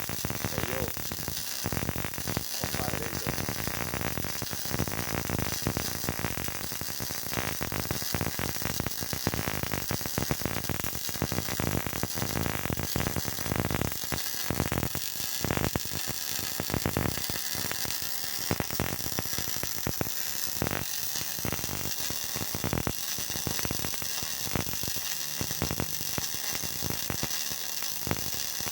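Electric arc welding: a steady, irregular crackle and hiss from the welding arc, kept up without a break.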